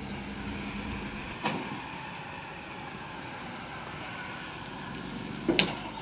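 A burning truck heard from some way off: a steady rushing noise from the fire, with two short sharp pops, about a second and a half in and near the end.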